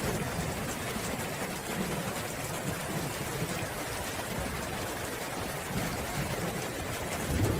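Steady heavy rain, with a low rumble of thunder that swells near the end.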